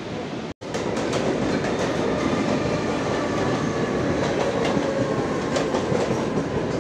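Mumbai suburban local train running into a station platform, heard from inside the coach by the open door: a steady rumble with the clickety-clack of wheels over rail joints. The sound cuts out for an instant about half a second in.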